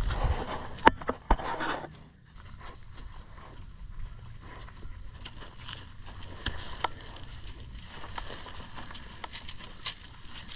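Pigs' trotters and footsteps moving through dry leaf litter and wood chips: scattered crackling and rustling steps, with a couple of sharp knocks in the first two seconds.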